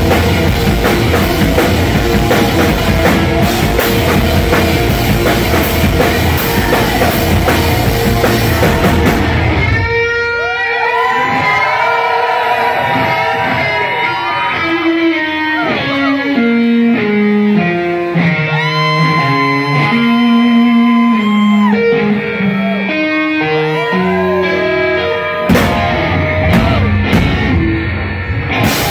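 Live rock band playing loud, electric guitar over bass and drum kit. About ten seconds in the band drops out, leaving an unaccompanied electric guitar solo of single notes with bends and slides, and the full band comes back in near the end.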